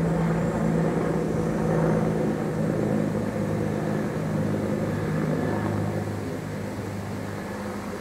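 Helicopter flying overhead: a steady droning hum of engine and rotors that grows a little fainter near the end.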